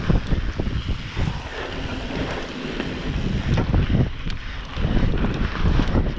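Wind buffeting the microphone of a mountain-bike camera riding fast down a dirt trail, over a steady rumble of knobby tyres on dirt, with a few short knocks from the bike over bumps.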